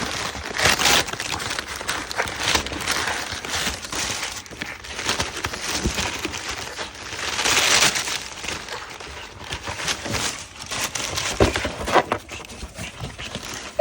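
Paper or plastic packaging crinkling and rustling in irregular bursts, with short clicks and scrapes, as a pug rummages into a box; one longer rustle comes about halfway through.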